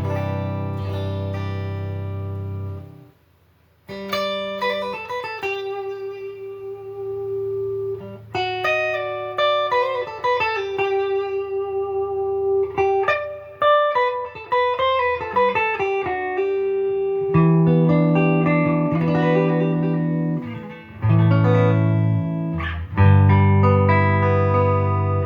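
Gibson Les Paul 50s Standard electric guitar with P90 pickups, played clean through an amp. A chord rings and fades out about three seconds in, and after a short pause single-note lines are picked. Near the end come loud strummed chords.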